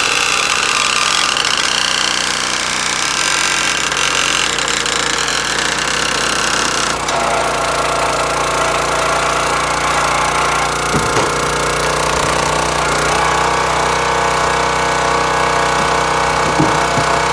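Gas-engine hydraulic log splitter running steadily under the ram's work. Its note changes abruptly about a third of the way in, and a few short knocks near the middle and end come from ash rounds cracking on the 4-way wedge.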